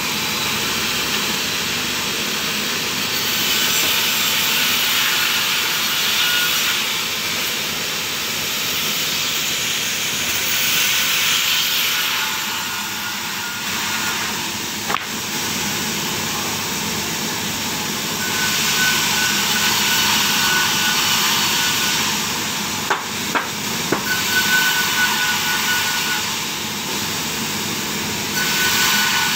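Sawmill saw running steadily, rising to louder stretches of a few seconds, each with a thin high whine, as the blade cuts through timber. Several sharp wooden knocks in the last third as cut boards are handled.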